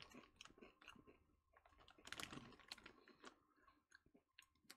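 Faint crunching and chewing of mini salsa-flavoured Doritos tortilla chips: irregular little crackles, densest about two seconds in.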